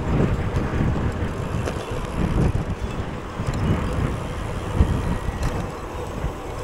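Wind buffeting the microphone in uneven low gusts while riding a bicycle in a race, with steady tyre and road noise underneath.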